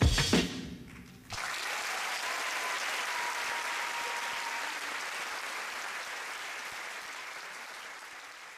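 The belly-dance track ends on two closing hits. About a second later the audience breaks into applause, which holds steady and slowly fades toward the end.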